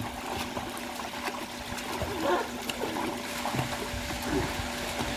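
Water splashing and churning as swimmers in inflatable rings kick and paddle across a swimming pool.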